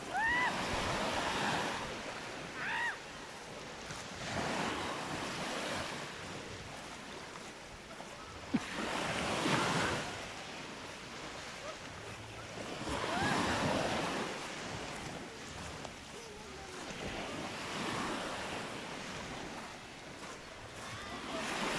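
Waves breaking on a sand beach and washing up the shore, the rush swelling and fading about every four seconds.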